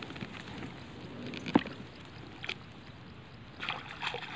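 Narrow boat being poled through a reed marsh: a steady wash of water and reed noise, with one sharp knock about a second and a half in and a lighter one a second later. The rustling grows louder near the end.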